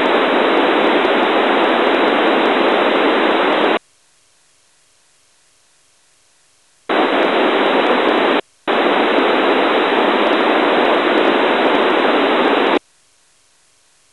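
Narrowband FM receiver hiss on the ISS 2-metre downlink, with the squelch open and no signal left because the space station is at or just below the horizon. The static cuts off a little under four seconds in, comes back about seven seconds in with a brief break, and cuts off again near the end.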